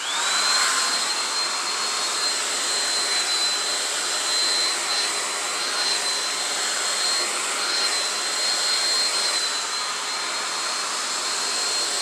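Andis hand-held hair dryer blowing steadily: a rush of air with a high, steady motor whine. Right at the start the whine jumps up in pitch as the dryer is switched to its medium setting.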